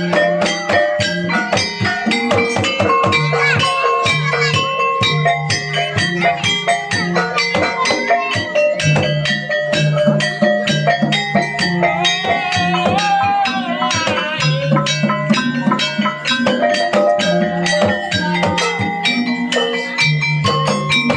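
Javanese gamelan-style accompaniment for a kuda kepang dance: fast, dense kendang drumming with ringing metal-keyed notes, and a wavering melody line about midway.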